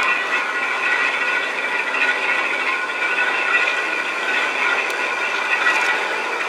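Railway turntable rotating with an EF81 electric locomotive on its bridge: a steady metallic whine made of several high tones, over scraping and rattling.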